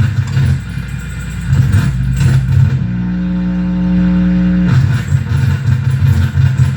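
Harsh electronic noise from a feedback noise rig: a loud, choppy, stuttering bass rumble. About three seconds in it gives way for roughly two seconds to a steady droning feedback tone with a stack of overtones, then the rumble returns.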